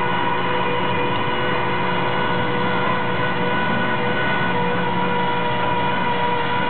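Flatbed tow truck's engine and hydraulic winch running steadily while the car is drawn up the bed: a constant mechanical drone with a steady, unchanging whine.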